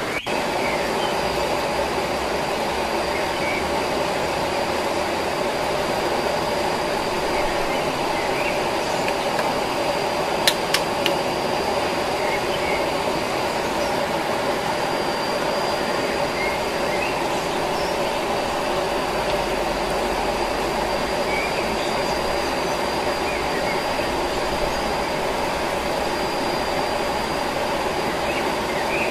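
Steady rushing of a nearby forest stream and waterfall, with a thin steady high tone and a few faint short chirps over it. Two sharp clicks come about ten seconds in.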